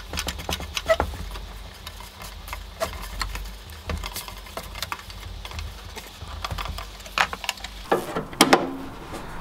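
Screwdriver turning the screw of a hose clamp on a plastic air duct: a run of small clicks and scrapes. Near the end, louder scraping as a plastic vent grille is pushed onto the duct.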